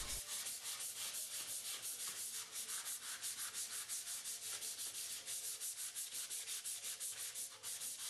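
A metal pipe being hand-sanded with an abrasive pad: fast, even back-and-forth scrubbing strokes, about five a second, giving a dry rasping hiss. The pipe surface is being smoothed of unevenness so that a clamp gasket can seat on it.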